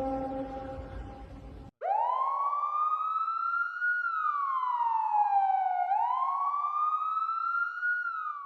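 A steady, droning tone of several pitches cuts off suddenly, and a siren starts wailing, its pitch rising and falling slowly: up, down and up again.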